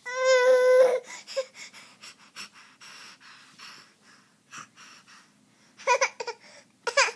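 A young child's voice: a high, steady whine lasting about a second at the start, then a few short fussy cries near the end, with faint rustling between.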